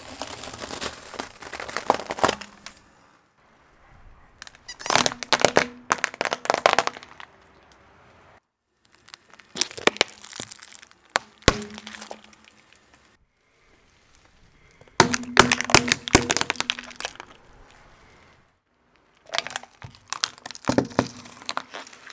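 A car tyre crushing a series of small objects, including an Orbeez-covered glove, a filled balloon and a sweets packet: five separate bursts of sharp cracks and pops, each a couple of seconds long, with short quiet gaps between them.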